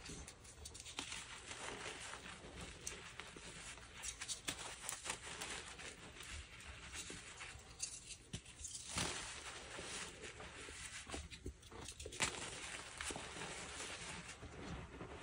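Dyed gym chalk being crushed and crumbled: a steady run of small crackles and dry crunches, with a couple of sharper snaps.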